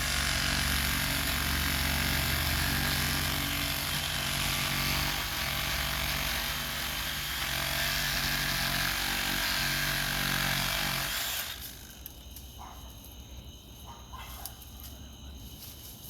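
Craftsman 20V brushless reciprocating saw running and cutting into a tree trunk, its motor steady under the noise of the blade in the wood. It stops suddenly about eleven and a half seconds in, leaving only faint clicks.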